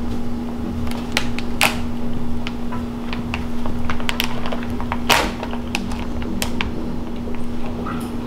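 Plastic snack bag being slowly picked open by hand, giving scattered small crinkles and clicks, with one sharper crackle about five seconds in. A steady low hum runs underneath.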